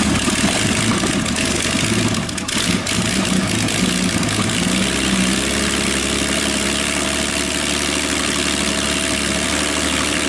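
Large engine idling steadily.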